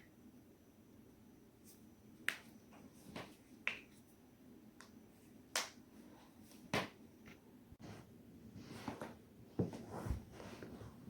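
Spinal joints cracking: a string of sharp, separate pops a second or two apart, then a quicker cluster of softer clicks with a couple of dull thumps near the end.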